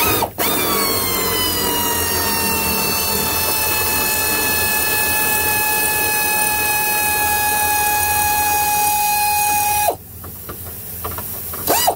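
Cordless power tool running continuously as it backs out a long, stiff body-type bolt: a steady motor whine that settles slightly lower in pitch after the start, then stops suddenly about ten seconds in, followed by a few light clicks.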